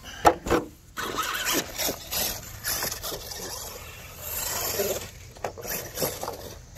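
A large-scale radio-controlled monster truck scrabbling over rough ground with irregular scrapes and knocks. Its rear drive shaft has just split, so only the front wheels are driving.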